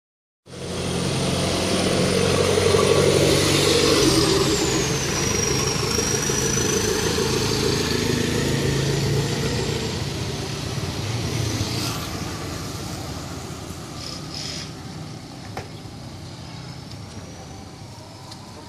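Street traffic: a motor vehicle engine running close by, loudest in the first few seconds and fading over the second half, with a thin high whine that dips in pitch about four to six seconds in.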